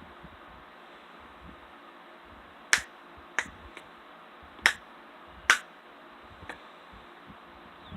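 Finger snapping: four loud, sharp snaps spaced about a second apart, with a couple of fainter ones among them.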